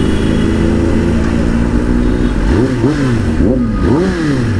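Kawasaki ZX-10R's inline-four engine running steadily, then revved in several quick throttle blips from about halfway through, each rising and falling in pitch.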